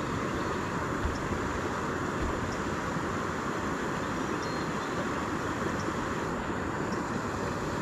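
A steady rushing noise with no distinct events.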